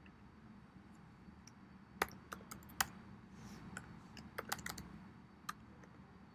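Computer keyboard being typed on: a quick, uneven run of keystroke clicks starting about two seconds in and stopping about a second before the end, a few strokes louder than the rest.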